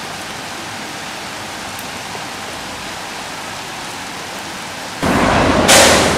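Steady rain falling on a wet flat rooftop, an even hiss. About five seconds in it switches to louder city street traffic, with a sharp burst of hiss just after.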